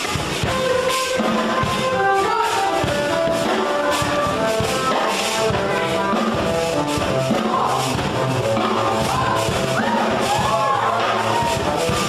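Rock music with guitar and drums, a melody of held notes over a steady beat.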